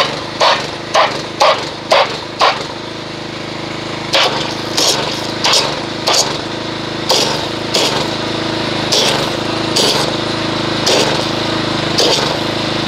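Pressure washer running, its wand spraying water into a bucket of car-wash soap solution and churning it into foam. A steady motor hum sits under regular pulses, about two a second at first and a little further apart after about four seconds.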